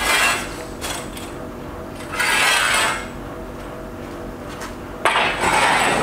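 A long steel pipe scraping and clattering against a concrete floor as it is handled and bent into an arc, in three short bursts about two to three seconds apart.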